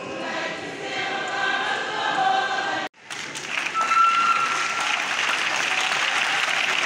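A group of voices singing together for about the first three seconds, cutting off abruptly. Then an audience applauding, with one held high note sounding over the clapping for about a second.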